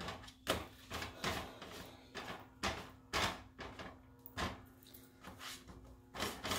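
Light, irregular taps and soft scuffs of fingertips pressing and turning handmade corn tortillas on a stovetop griddle, with a faint steady hum underneath.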